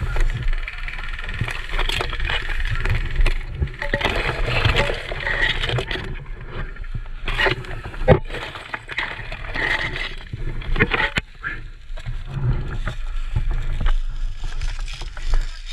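Tall grass and dry leaves rustling and scraping against the camera and an airsoft rifle as the wearer moves through brush, with a steady low rumble of handling noise on the microphone. A sharp knock about eight seconds in.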